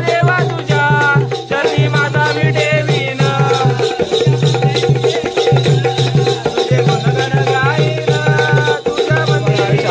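Konkan jakhadi folk dance music: a voice singing a wavering melody over a steady drum beat with rattling percussion.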